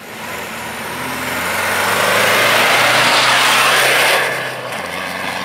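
Rally pickup truck driving past close at speed on a dirt stage, its engine under hard throttle. The sound builds, is loudest about two to four seconds in, then falls away as it passes.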